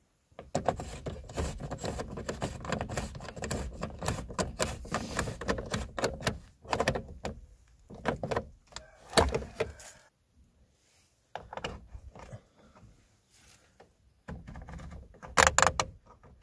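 Hard plastic and small metal parts clicking and rattling as the headlight range control switch is fitted back into the plastic dashboard trim panel by hand. The handling is busy for the first ten seconds, then falls to scattered clicks, with a quick run of sharp clicks near the end as the panel is pressed home.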